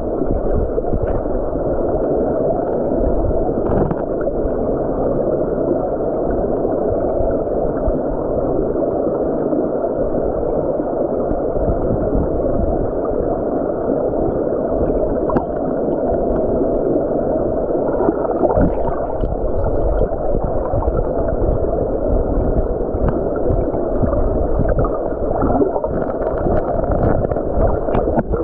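Muffled, steady rush of stream current heard with the microphone underwater, with a few faint clicks and knocks scattered through it.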